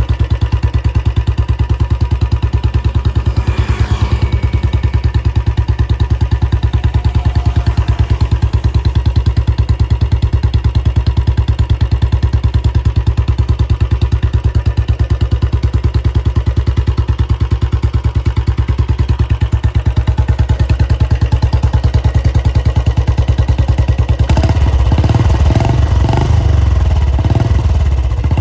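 Royal Enfield Classic 350 single-cylinder engine idling through its exhaust with a steady, even thump. About 24 seconds in, the throttle is blipped several times in quick succession.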